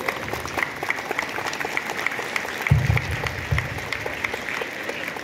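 Crowd applauding, over a regular tapping beat of about four sharp ticks a second. A few low thumps come about three seconds in.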